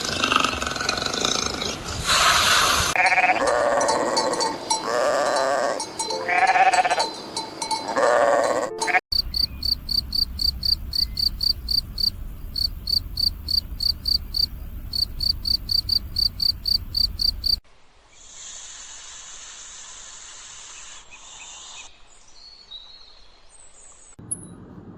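A series of animal calls: pitched bleating-like cries for the first third, then a fast, even run of high chirps about three a second, then a quieter hiss with a few short high chirps near the end.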